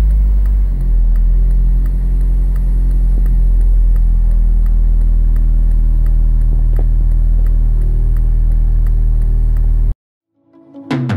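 2007 Honda Civic's four-cylinder petrol engine dropping from a rev back to idle, then idling steadily with a faint, even ticking. It cuts off abruptly about ten seconds in.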